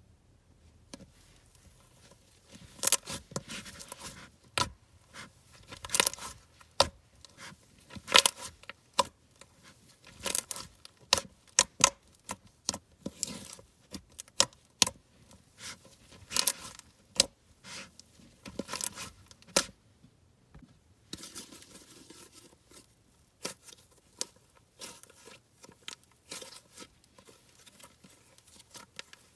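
Thick peach cloud cream slime being kneaded, folded and stretched by hand on a plastic tray: irregular sharp pops, crackles and tearing sounds, one or two a second, with a short lull about two-thirds through.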